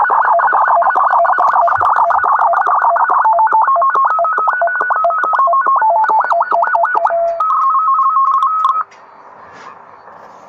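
Tecsun PL-660 shortwave receiver tuned to 3730 kHz, playing a data transmission made of tones. It begins as a fast warble of shifting tones, then slows to tones stepping up and down between a few pitches, then a short held tone that cuts off suddenly about nine seconds in, leaving faint band noise. The uploader wonders whether it is SSTV.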